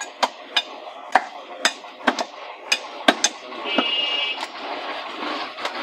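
Heavy cleaver chopping beef on a wooden chopping block, about ten sharp chops at roughly two a second, then sparser. About halfway through, a steady background noise grows louder.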